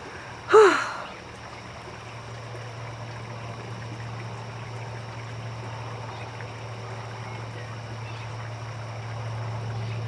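A short sigh-like vocal sound from a person, falling in pitch, about half a second in; then a steady low hum that slowly grows louder over a faint background hiss.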